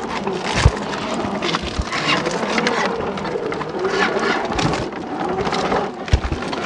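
A 1/10-scale RC crawler's 55-turn brushed electric motor and gearbox whining at crawling speed, with its tyres crunching and scraping over wet leaves, twigs and logs. There are a few low thumps, about half a second in, near two seconds and near six seconds.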